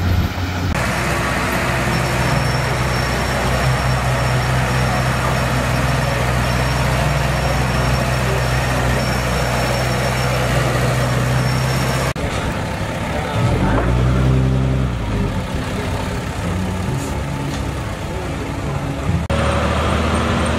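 Heavy diesel earthmoving machinery running at work, a steady engine drone. The sound changes abruptly a few times, and the engine swells louder with shifting pitch for a couple of seconds about two thirds of the way through.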